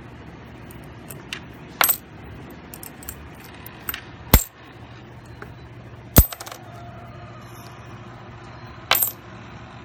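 Coins dropped one by one into a vending machine's coin acceptor: about five sharp metallic clinks, a second or two apart, over a low steady hum.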